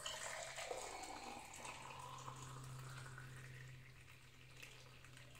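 Hot dried-ginger coffee poured from a steel pan into a tall glass: a faint, steady liquid stream that tapers off about four seconds in.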